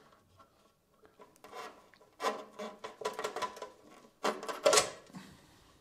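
Cables and metal conduit tubes being pulled and worked through an opening in a lathe's sheet-metal base, making a series of rubbing, scraping handling sounds with small knocks. It is loudest about four and a half seconds in.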